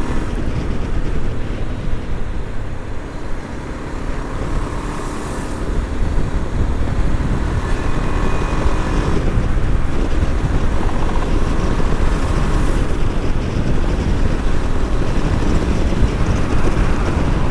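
KTM Adventure motorcycle riding at highway speed: a steady rumble of engine, wind and road noise, getting a little louder as the bike picks up speed.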